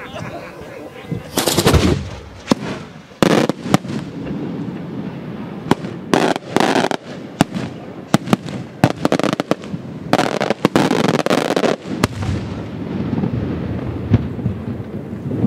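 Beraq firework shells bursting: rapid runs of sharp bangs and crackling reports in several bursts, the densest about a second and a half in, around six to seven seconds in, and from about ten to twelve seconds in.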